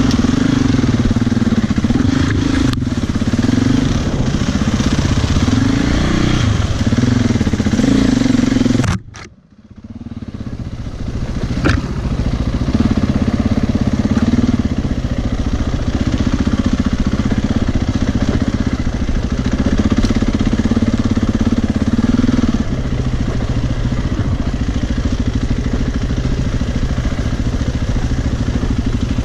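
Single-cylinder four-stroke enduro motorcycle engine running under changing throttle while riding, its pitch rising and falling. The sound drops out abruptly about nine seconds in and comes back within a couple of seconds.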